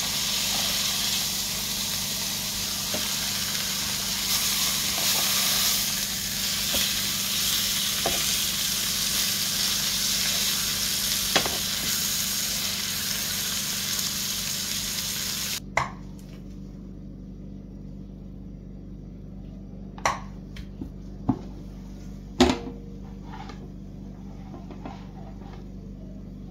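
Halved chickens sizzling in their juices in a double-sided grill pan, with light clicks of metal tongs turning them. The sizzling cuts off suddenly a little over halfway through, leaving a low steady hum and a few sharp knocks.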